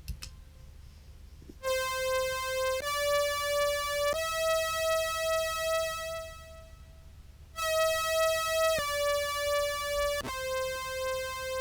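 Meris Enzo pedal's mono synth voice tracking a contrabass clarinet, with the clarinet's dry sound removed, pitched two octaves up. It plays three held notes stepping upward, pauses, then plays three notes stepping back down.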